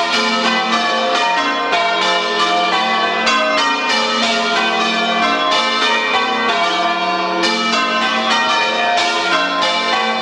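Church bells of St Mary's, Chesham, rung in changes: a loud, fast, even stream of bell strikes whose tones overlap and hang on.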